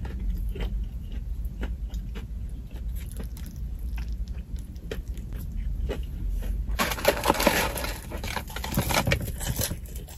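A person chewing a crispy fried-chicken burger, soft mouth clicks and crunches over a low steady rumble. From about seven seconds in, a denser crackling rustle takes over for a few seconds, like a paper fries carton being handled.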